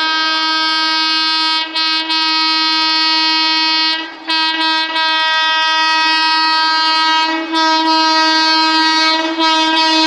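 WAP5 electric locomotive's horn blowing one long, loud, steady note as the train approaches, held almost without pause apart from a few brief breaks, the longest about four seconds in.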